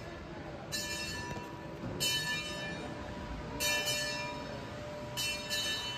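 A bell struck repeatedly, about every one and a half seconds, each stroke ringing on with a bright metallic tone over a steady background hum.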